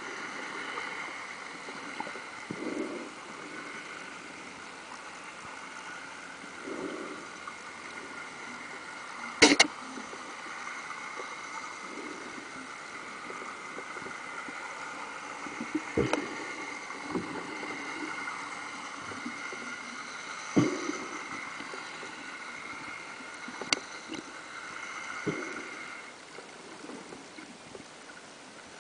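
Underwater ambience picked up by a submerged camera: a steady hiss with a faint high hum that stops near the end, broken by a few sharp knocks and softer thuds.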